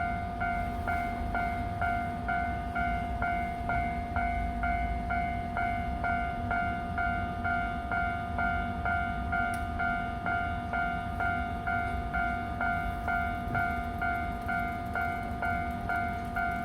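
Japanese railway level-crossing alarm ringing continuously: a repeated electronic clang of about two strikes a second, with a low rumble underneath.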